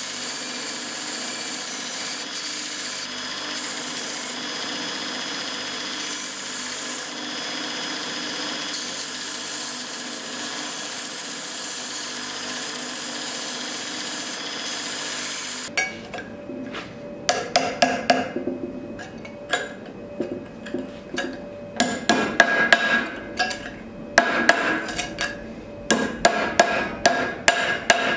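Belt grinder running with a small metal piece held against the moving belt, a steady grinding hiss. About sixteen seconds in this gives way to a hammer striking metal on the horn of an anvil: a string of ringing strikes in quick, irregular clusters.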